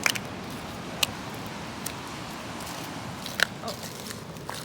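A few sharp clicks and taps, about four, the loudest near the end, over a steady rushing background noise by the shore.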